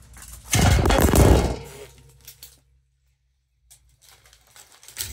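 A burst of rustling, knocking handling noise lasting about a second as the recording phone or camera is grabbed and moved. After it the sound cuts to dead silence for about a second.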